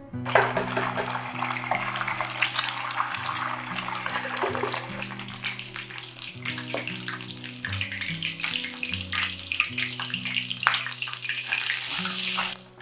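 Eggs frying in hot oil in a wok: a dense crackling sizzle with frequent pops that cuts off abruptly near the end. Soft background music plays under it.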